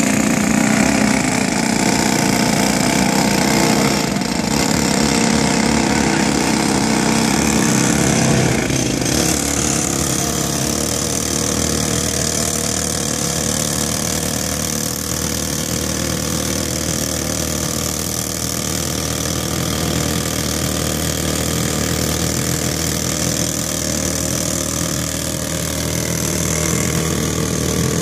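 Pneumatic rock drill hammering into rock for about the first nine seconds, then stopping, leaving an engine running steadily at idle.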